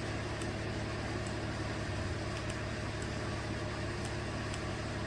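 Chevrolet Colorado 3.6-litre V6 idling steadily: a low, even hum with faint light ticks above it.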